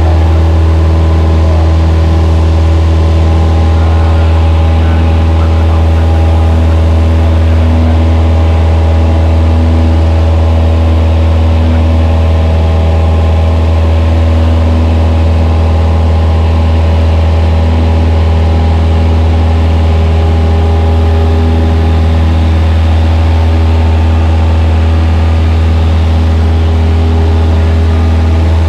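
Cessna 172's piston engine and propeller running steadily in flight, heard from inside the cabin as a loud, even low hum with steady overtones.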